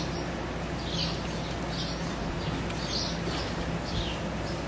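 A small bird chirping over and over, short high chirps about once a second, over a steady background hiss and low hum.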